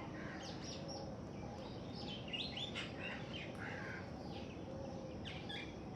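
Ring-necked parakeet giving short, sharp chirping calls in quick groups of two or three, several times over, against a steady low background noise.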